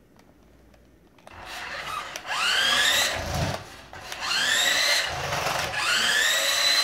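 Tyco Twin Turbo Porsche 962C radio-controlled car's electric drive motor whining, starting about a second in and rising in pitch three times as the car speeds up across a tile floor. A low rumble follows each run-up.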